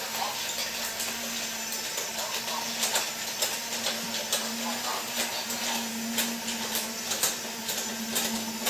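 Battery-powered Disney Monorail Playset toy trains running on their track: a steady electric motor hum with frequent irregular clicks and rattles from the running gear.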